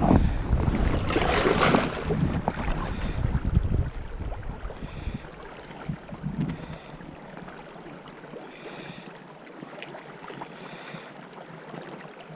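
Wind buffeting the microphone, heaviest in the first four seconds, over a steady rush of river water.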